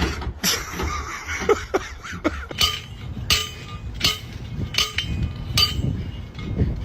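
Sharp metallic strikes, about five of them roughly three-quarters of a second apart, each ringing briefly, over a steady low rumble.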